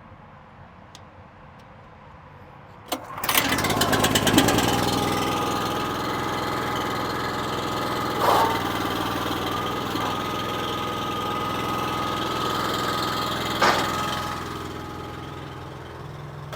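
Small engine of a firewood log splitter starting about three seconds in and then running steadily, with two short knocks over it.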